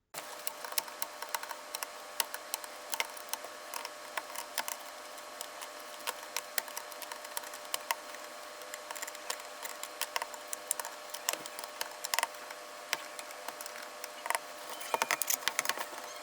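Many sharp, irregular clicks and snaps of small tools cutting and prying plastic rivets off a MacBook Pro top case, over a steady background hum. The clicks come thicker near the end.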